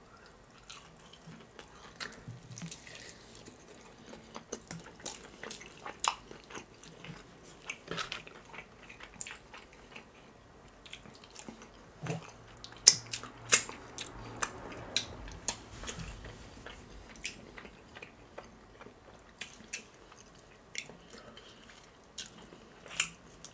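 Close-miked chewing of KFC fried chicken: many short crisp crackles and wet mouth clicks, with a run of louder crunches about halfway through.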